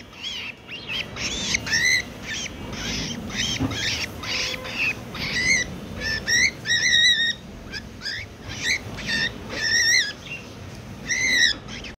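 Cockatiel squawking and chirping in a rapid run of short, harsh calls, about two a second, some rising and falling in pitch. The bird is agitated.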